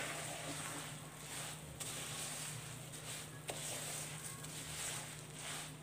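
Spatula stirring sesame seeds and crushed peanuts into sticky hot jaggery syrup in a metal kadhai, scraping and rustling in repeated strokes, with one sharp click about three and a half seconds in. This is the mixing stage of til laddu, with the heat off.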